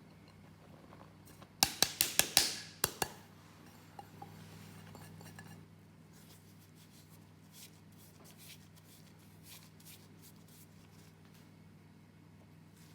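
A quick run of about seven sharp clicks in about a second and a half, then two fainter clicks and scattered light clicking, from hands-on kitchen work.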